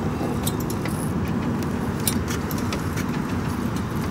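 Steady low outdoor rumble with scattered light clicks and small rattles of handling.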